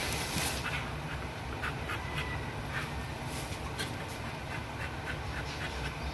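Shredded-newspaper bedding in a whelping box rustles in short, scattered crackles as a mother dog in labour shifts among her newborn puppies. A steady low hum runs underneath.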